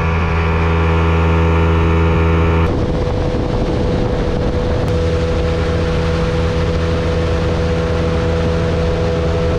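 Outboard water-jet motor of an inflatable boat running steadily at planing speed. About three seconds in, the sound turns to a loud rush of water spray and wind hiss, with the engine note still running underneath.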